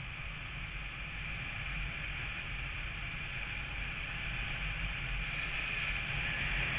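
Steady rush of wind and road noise from a motorcycle riding along at speed, with the engine running underneath; it grows slightly louder near the end.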